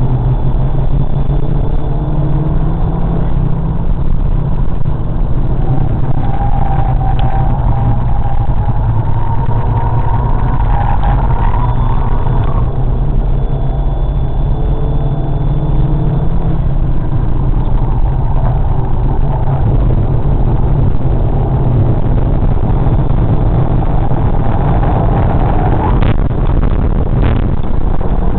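Cabin sound of a VW Golf 5 with a 1.4 TSI turbocharged four-cylinder petrol engine being driven hard on a race circuit: loud, steady engine and road noise. The engine note climbs as the car accelerates and drops sharply at upshifts about 12 and 26 seconds in.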